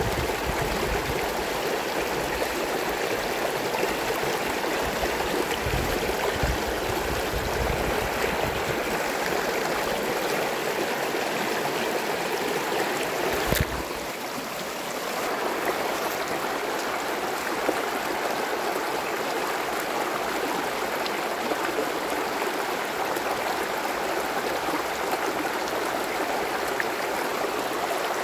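Shallow rocky stream rushing and gurgling over stones, a steady wash of running water, with one brief click about halfway through.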